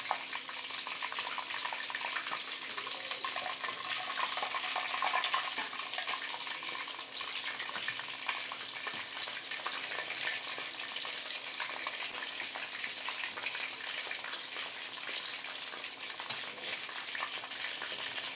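Flour-and-masala-coated chicken pieces deep-frying in hot oil in a wide kadai: a dense, steady sizzle full of fine crackles, as a wire spider skimmer stirs and turns the pieces.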